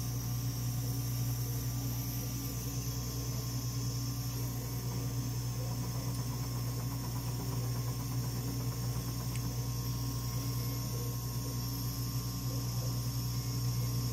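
Steady hum and hiss of a running Dimension RxL clinical chemistry analyzer, its fans and electronics going with no distinct mechanical strokes.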